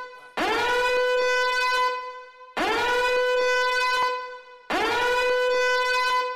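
Three identical horn blasts, evenly spaced. Each scoops up in pitch at the start, then holds one steady note for about a second and a half before fading.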